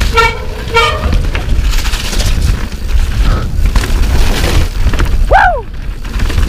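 Wet mountain-bike disc brakes squealing in short pitched bursts, twice about a second in and again briefly near the end, over a constant low rumble of wind and tyres on the dirt trail.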